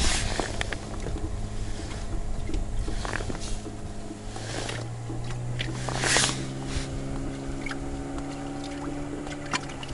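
Outboard motor running steadily, its hum stepping up slightly in pitch about four seconds in, over water lapping against an inflatable boat. Scattered small clicks and rustles come from handling a soft-plastic swimbait and its stinger hook.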